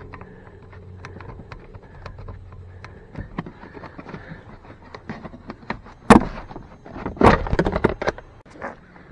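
Handling noise in a truck cab: light clicks and taps as a small power inverter is held against the plastic under-dash panel, marked and set down on the floor, with two louder knocks about six and seven seconds in.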